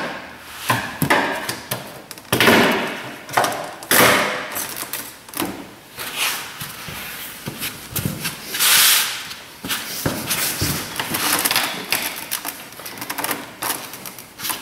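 Plastic push-in retainer clips popping and the trim panel scraping as the rear door panel of a 1997 Buick LeSabre is pried off the door: a string of sharp pops and clicks with short scrapes, the longest scrape about nine seconds in.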